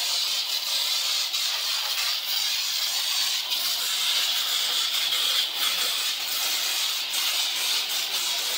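Pressure-washer water jet spraying with a steady hiss.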